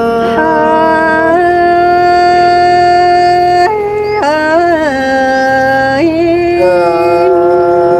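Singing in long held notes that change pitch every second or two, with a quick wavering ornament a little past the middle.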